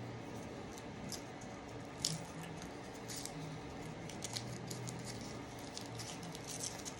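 Faint crinkles and clicks of a plastic candy package of salty licorice being handled and opened, with a sharper click about two seconds in and a quick cluster near the end.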